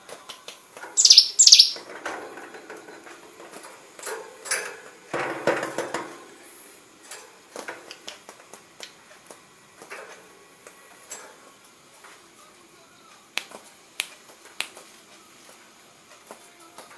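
A prinia, a bird kept for its mimicry of white-rumped shama song phrases, giving two loud, high, sweeping notes about a second in. A brief rustle follows about five seconds in, and light clicks and taps are scattered through the rest.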